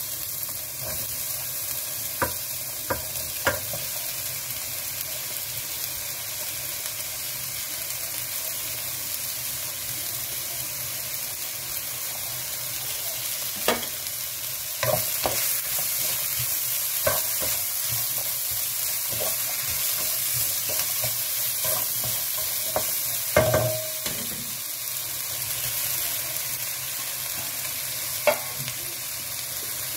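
Vegetables sizzling as they stir-fry in a nonstick wok, with a steady hiss and scattered taps and knocks of a wooden spatula against the pan. The sizzle gets a little louder about 15 seconds in, as more vegetables go into the pan.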